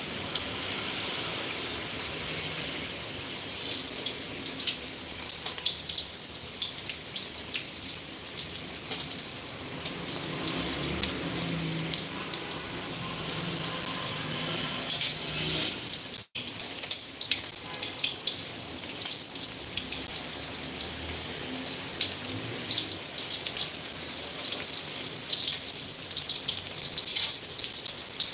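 Hot oil sizzling steadily with many small crackles and pops, as food fries.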